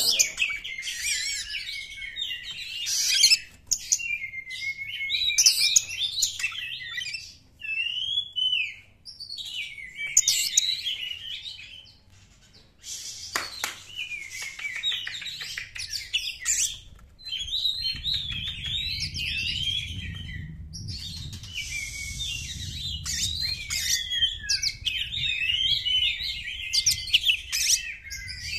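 Oriental magpie-robin singing: rapid, varied phrases of whistles, trills and scratchy chatter in bouts of a few seconds with brief pauses, running almost unbroken over the last third. A single sharp click comes about halfway through, and a low rumble sits underneath in the last third.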